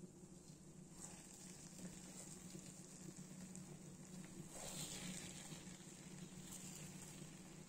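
Faint sizzling of hot masala rice in a pot as a spatula stirs through it, louder for a moment about five seconds in, over a steady low hum.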